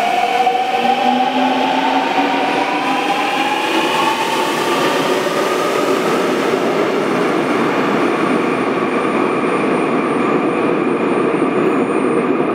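Daejeon Metro subway train pulling out of the station. The electric traction motors whine, rising in pitch over the first four or five seconds as the train accelerates, over the rumble of the wheels on the rails. The rumble carries on as the train leaves.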